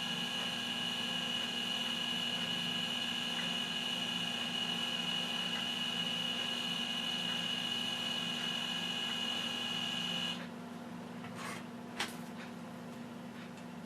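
A steady machine hum made of several fixed tones, with one high whine standing out. It cuts off abruptly about ten seconds in, and a couple of sharp clicks follow.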